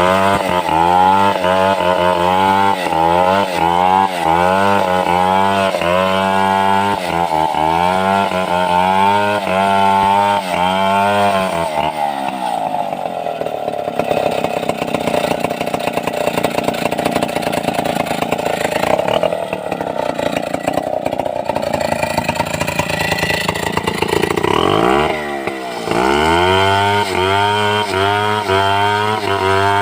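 Stihl 070 two-stroke chainsaw ripping along a log. For about twelve seconds the engine speed wavers under load as it cuts. It then runs higher and steadier for about thirteen seconds, dips briefly, and goes back to the wavering, loaded pitch of cutting.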